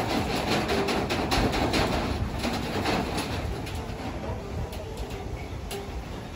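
A cow feeding with its muzzle down in a concrete trough: quick clicks and crunches, several a second, that thin out after about three seconds, over a low rumble.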